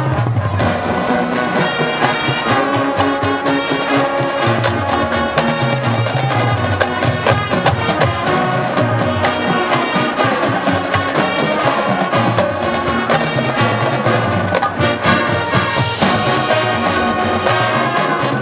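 High school marching band playing a brass-led arrangement, with percussion keeping a steady beat throughout.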